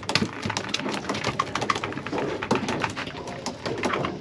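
A dense, irregular crackle of many small clicks and ticks, without speech.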